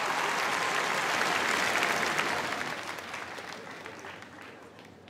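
Audience applauding, the clapping dying away steadily over the last three seconds.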